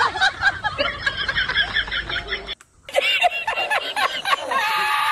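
Laughter: a quick run of rhythmic giggling that cuts off abruptly about two and a half seconds in, then more laughing that ends in a long held high squeal.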